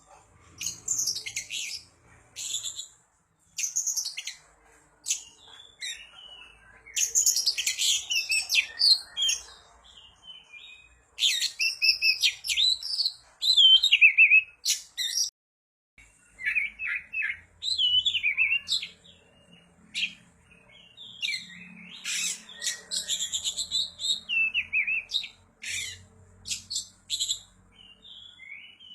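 Oriental magpie-robin (kacer) singing a varied song of clear whistles, pitch glides and harsh chattering notes, in quick phrases with short pauses between them.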